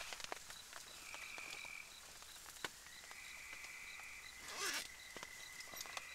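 Night insects or frogs calling: a short high chirp repeating about three times a second and a steady high trill that comes and goes, with scattered faint clicks. A brief louder burst of noise comes about three-quarters of the way through.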